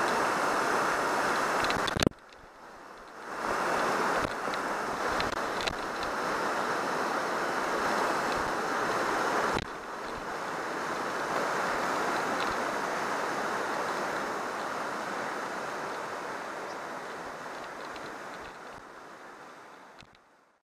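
Fast river rapids rushing steadily, with a sharp knock about two seconds in after which the rush briefly drops away before returning; the sound fades out at the end.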